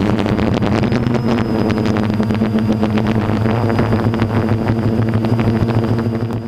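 Multirotor drone's motors and propellers buzzing steadily with a low hum, picked up by the onboard GoPro's microphone along with wind noise as the drone climbs; the sound fades out near the end.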